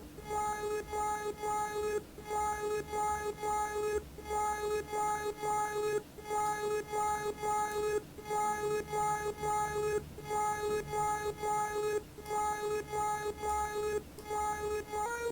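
Software synthesizer patch in VCV Rack with Surge XT, repeating a single note in a steady pulsing rhythm with a short break about every two seconds. It jumps to a higher note at the very end.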